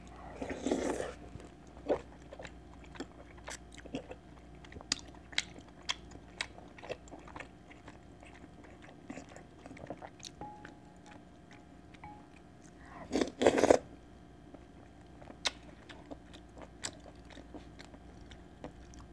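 Close-miked eating sounds: a mouthful of chicken tteokguk with its rice cake being chewed, with many small wet clicks and lip smacks. Two louder bursts of mouth noise come about a second in and again about thirteen seconds in.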